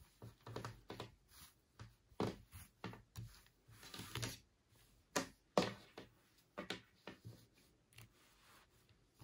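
Hands handling a crocheted yarn cape and its ties: irregular soft rustles and light taps, with a sharper tap about five and a half seconds in.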